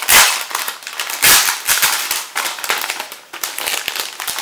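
A thin plastic foil LEGO polybag being torn open and crinkled in the hands: sharp crackling rustles, loudest at the start and again about a second in, then smaller crinkles.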